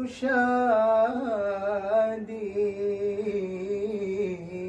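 A man singing an Arabic nasheed unaccompanied, drawing out one syllable in a long ornamented melisma. About two seconds in, the voice settles onto a lower, steadily held note.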